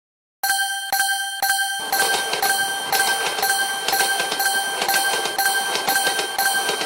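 Japanese level-crossing warning bell (fumikiri) ringing its repeated "kan-kan" strikes about twice a second, starting after a short silence. From about two seconds in a steady rushing noise joins underneath.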